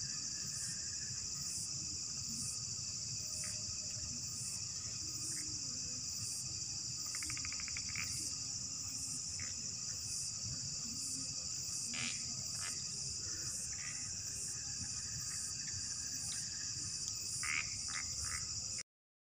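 Night chorus of insects and frogs: a steady high insect drone with a regular pulsing over it, about one and a half pulses a second, and frogs calling now and then, with a rapid trill about eight seconds in. It cuts off abruptly near the end.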